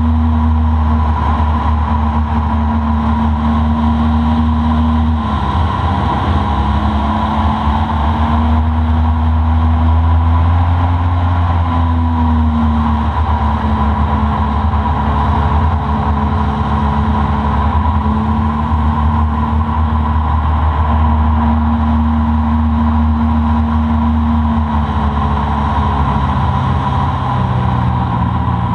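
Small motorboat's engine running steadily while underway. Its pitch dips and rises slightly a few times, about five, twelve and twenty-five seconds in.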